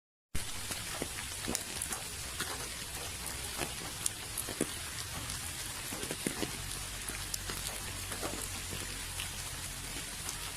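Steady rain falling, with many individual drops tapping distinctly over an even hiss. The sound cuts out completely for a split second right at the start.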